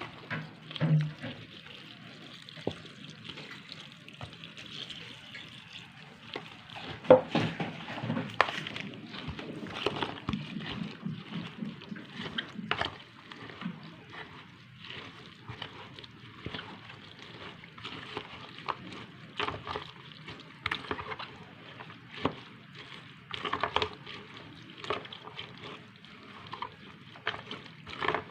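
Irregular wet sloshing and clicking as a thick vegetable-fritter batter of flour, water and shredded carrot and cabbage is stirred and mixed in a bowl.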